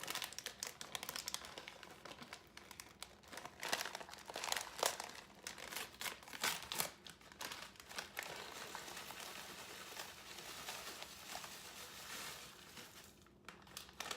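Plastic inner bag of a boxed stuffing mix crinkling and rustling as it is opened and the dry stuffing is shaken out, a long run of irregular sharp crackles that dies down near the end.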